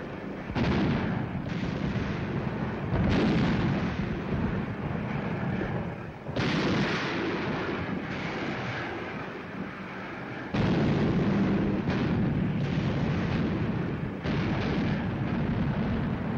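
Anti-aircraft guns firing: a series of about ten heavy reports at uneven intervals, each booming on into the next so the rumble never dies away between shots.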